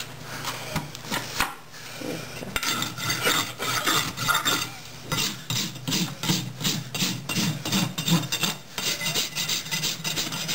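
Farrier's rasp filing a horse's hoof in repeated scraping strokes, coming thicker and faster from about halfway through.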